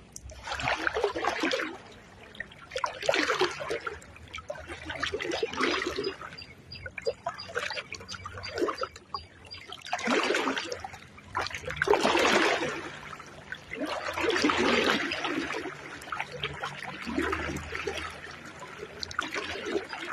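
River water sloshing and splashing in repeated surges every couple of seconds, as legs wade through shallow river water.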